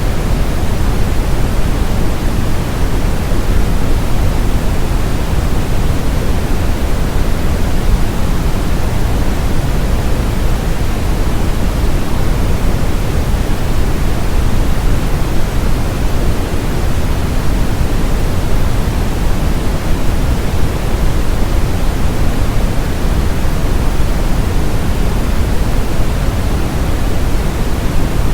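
Brown noise: a steady, deep rushing hiss, heaviest in the bass and rolling off toward the treble, with no change.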